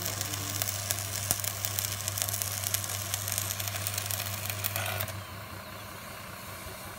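Stick welding on a steel beam joint: the arc crackles and sizzles over the welding machine's steady mains hum, both cutting off suddenly about five seconds in as the arc is broken. After that a steady low engine-like drone remains.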